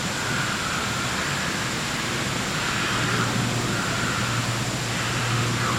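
Steady rushing background noise, with a low hum that grows stronger about halfway through.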